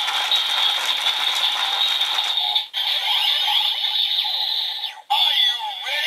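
DX Build Driver toy transformation belt being cranked by its lever: a plastic ratcheting rattle over the belt's loud electronic build-up sound effects. About two and a half seconds in the sound breaks off briefly and turns into swooping electronic effects, with another short break near the end.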